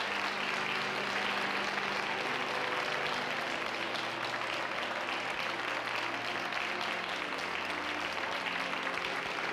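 A church congregation applauding steadily, with sustained low chords of music underneath.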